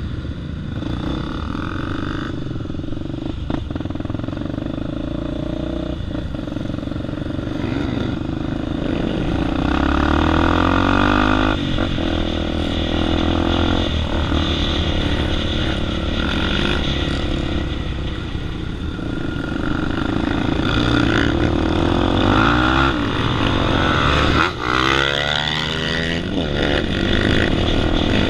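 On-board sound of a single-cylinder four-stroke trail motorcycle being ridden, its engine rising and falling in pitch as it revs up and eases off through the gears, with wind rush over the helmet microphone.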